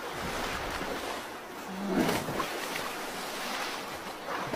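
River water splashing and rushing as a black bear lunges through the shallows after a fish, with the loudest splash about two seconds in.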